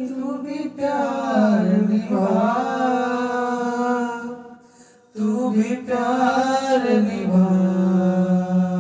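Men singing a slow, unaccompanied melody into microphones, holding long notes, in two phrases with a short breath about four and a half seconds in.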